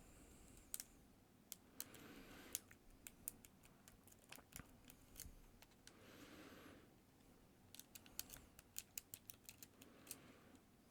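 Faint, irregular clicks and scratches of a lock pick and tension wrench working the pins inside a Master Lock trigger lock's keyway. The clicks come in quick runs, once in the middle and again near the end.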